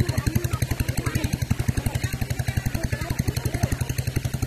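Small engine running steadily at idle, a fast even beat of about ten pulses a second.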